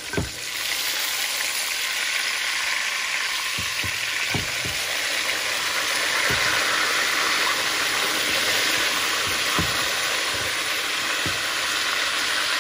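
Beef chuck roast searing in hot oil in a metal pan: a steady sizzle that grows louder about half a second in, with a few soft knocks as the meat is turned.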